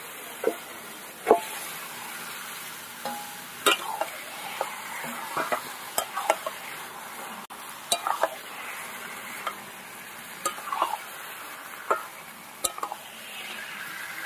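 Raw chicken pieces tipped into hot fried spice paste in a metal kadai and stirred with a metal spatula. A steady sizzle runs under irregular scrapes and knocks of the spatula against the pan.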